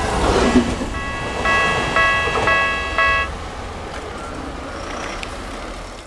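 The tail end of a Tokyu Toyoko Line train rumbling past, then the level crossing's warning bell ringing about twice a second for around two seconds. The bell stops about halfway through once the train has cleared, leaving quieter street ambience.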